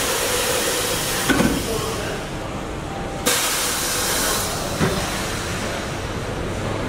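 Small pneumatic punch press cycling: a burst of compressed-air hiss fading at the start, and another cutting in sharply about three seconds in and lasting about a second, each followed by a short knock from the press.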